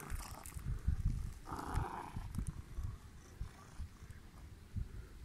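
Domestic cat purring up close while being stroked by hand.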